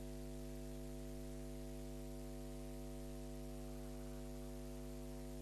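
Steady electrical mains hum, a stack of buzzing tones over a faint hiss, with the game sound and commentary gone from the audio track.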